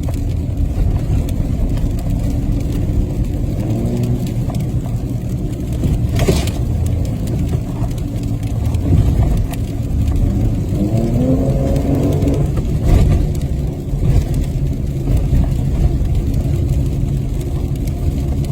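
Four-wheel-drive truck driving on an icy road: steady engine and road rumble, with the engine pitch rising about four seconds in and again around ten to twelve seconds in, and a sharp knock about six seconds in.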